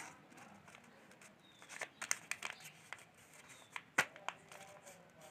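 Faint rustling and creasing of paper as a folded sheet is pressed flat by hand, with a cluster of soft crinkles about two seconds in and a single sharp tap about four seconds in.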